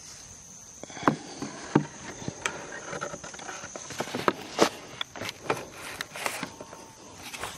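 Irregular knocks and taps, about a dozen spread unevenly, the sharpest a little after one second and near two seconds in, over a steady high-pitched insect whine.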